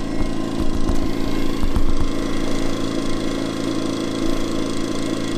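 CAT INV2000 inverter generator running steadily with no load, its eco throttle on so the engine is throttled down: an even, unchanging engine hum.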